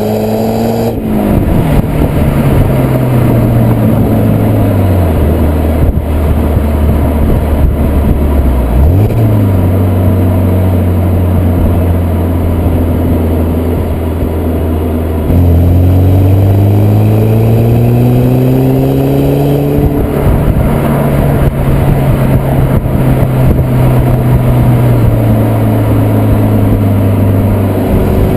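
BMW 120i (E81) 2.0-litre four-cylinder petrol engine through its stock exhaust while driving: the revs climb and then drop sharply about a second in, fall away and hold steady, then climb again, louder, a little past halfway before settling to a steady drone.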